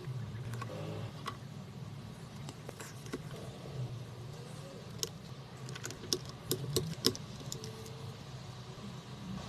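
Scattered light clicks and taps over a steady low hum, coming thicker about five to seven seconds in.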